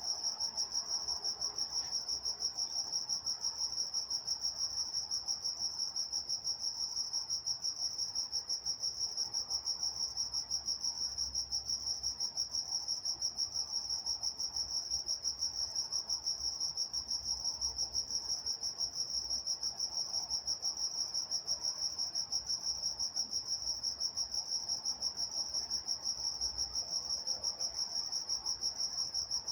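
Crickets chirping at night in a steady chorus, their high chirps pulsing in a fast, even rhythm without a break.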